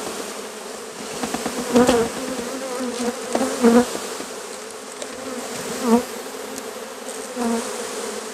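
A mass of honey bees buzzing steadily as they are poured out of a 3 lb package into a hive box, with the hum swelling louder for a moment about every two seconds.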